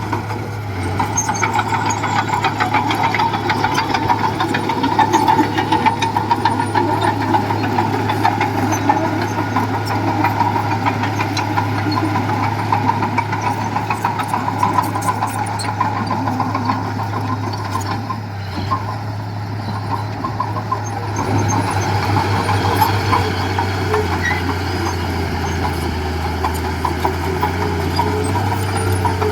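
Heavy diesel engine of earthmoving machinery running steadily under work, easing off briefly about two-thirds of the way through and then picking up again.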